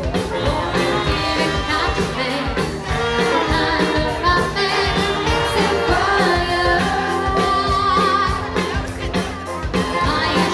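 Live wedding band playing a pop song: a lead singer over electric guitar, keyboard and drums with a steady beat.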